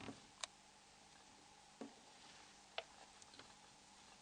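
A few faint, small clicks, about a second apart, of the plastic SIM lid on a Nokia 6125's C-cover being flexed over its guide pin and snapped closed.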